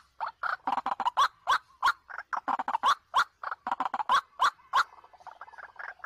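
White-breasted waterhen (ruak-ruak) calling, a fast run of short harsh croaking calls, about four a second, that thins out and grows fainter near the end.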